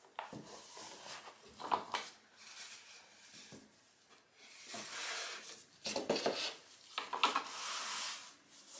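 Plastic bucket and jugs of soap batter being set down and slid about on a stainless steel worktop: a series of knocks and scraping rubs, busiest in the second half.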